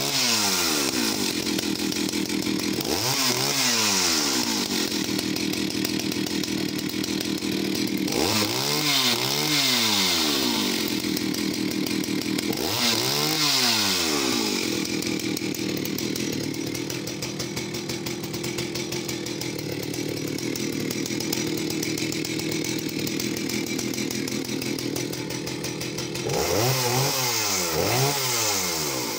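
Vintage Jonsered 80 two-stroke chainsaw running just after starting, revved up and back down several times, with a steadier stretch of running between the later revs.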